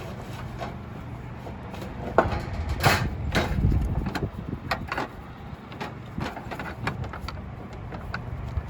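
Hand work on a slate roof: irregular sharp taps, knocks and short scrapes of tools and a metal flashing plate against slate, over a steady low background hum.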